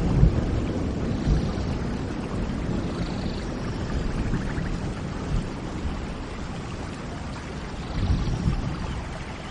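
Steady rain falling while a roll of thunder fades away, with another low rumble swelling about eight seconds in. Faint bird chirps come through the rain a few times.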